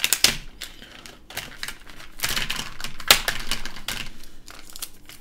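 Plastic toy packaging being handled and pulled open by hand: an irregular run of crackles, clicks and rustles, loudest in brief clusters.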